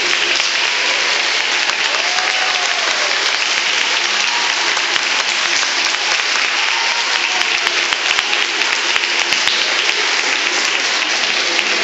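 Audience applauding steadily at the end of a dance number.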